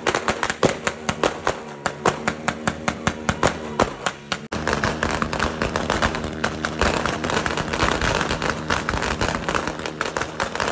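Firecrackers going off in rapid succession, sharp bangs at about five a second. After a break about four and a half seconds in, a denser, continuous crackle of firecrackers and fireworks follows.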